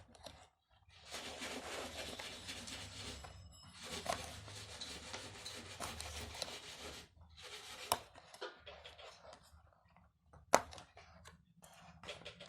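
Toy packaging being handled by hand: a rubbing, scraping noise for about six seconds, then quieter handling with a few sharp clicks, the loudest about ten seconds in.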